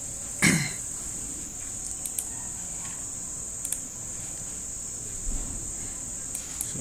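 A steady high-pitched background tone with no clear source runs underneath. There is a short, loud sound about half a second in, falling in pitch, and a few faint clicks later.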